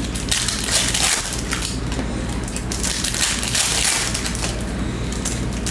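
Foil trading-card pack wrapper crinkling and crackling as it is torn open and handled, over a low steady hum.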